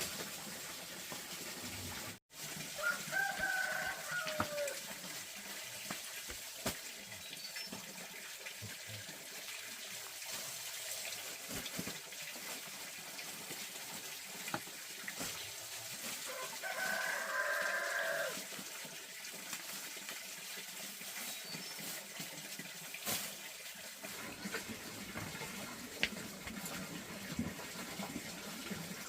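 Rooster crowing twice, each crow about two seconds long and well apart, over a steady background hiss.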